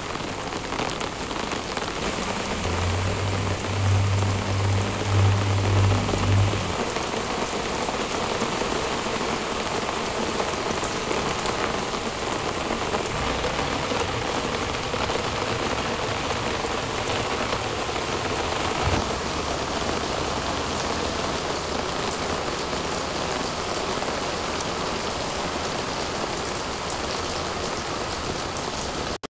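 Steady rain falling and pattering on a garden's pots, leaves and paved floor, an even hiss throughout. A low droning hum rises over it from about three seconds in and stops after about six.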